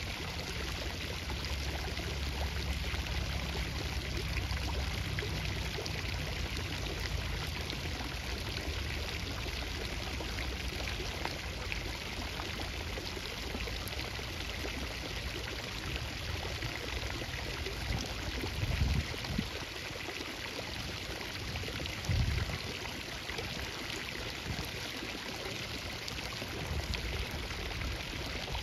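Steady rush of flowing water. A low rumble sits under it for the first several seconds, and two dull thumps come about three seconds apart later on.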